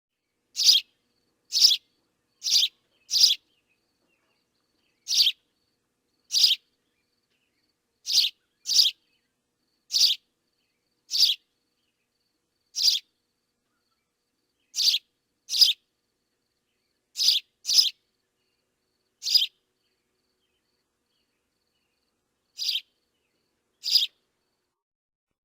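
Sparrow chirping: about eighteen single short, high chirps, some in quick pairs, spaced irregularly a second or two apart with complete silence between them.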